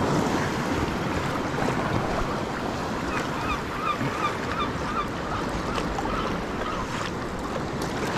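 Sea water lapping and splashing around a kayak and its paddle, with wind on the microphone. From about three seconds in, a bird calls in a quick series of short chirps for several seconds.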